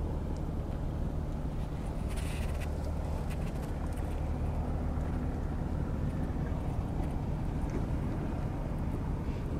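A motor running steadily with a low, even hum, with a few faint clicks about two to three seconds in.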